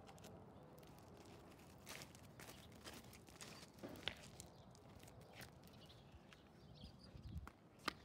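Faint handling noise: scattered soft clicks and crinkles over a quiet background, with a brief low rumble about seven seconds in.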